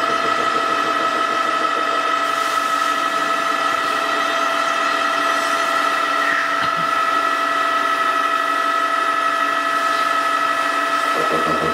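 Horizontal milling machine running: a steady mechanical whine made of several held tones over an even hiss. Just before the end a lower hum grows stronger.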